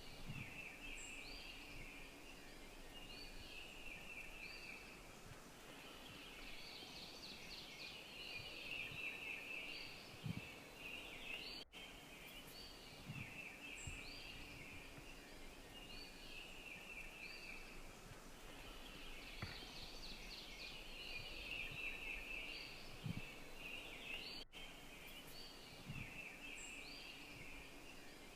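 Faint woodland birdsong: a steady high chattering with short chirps repeated about once a second. The sound cuts out suddenly and briefly twice.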